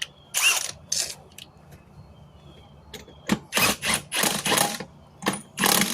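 Power tool running in a series of short bursts, typical of an impact wrench taking the lug nuts off a wheel for a tire change.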